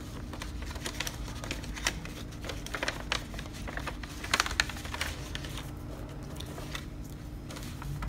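A paper card handled in the fingers close to a clip-on microphone: scattered light clicks and rustles, with a quick cluster of louder ticks a little past halfway.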